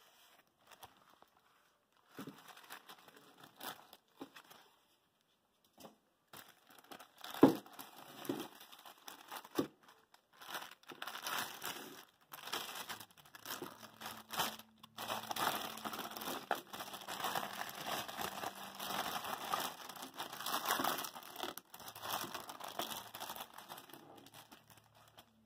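Plastic wrapping and foam packing crinkling and rustling as a power supply is pulled out of its packaging by hand. It comes in irregular bursts, with one sharp knock about seven seconds in, and turns to nearly continuous crinkling in the second half.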